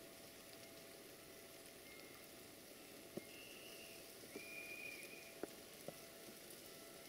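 Near silence: a faint steady hiss of wet snow falling, with a few small ticks and two faint, brief high whistles around the middle.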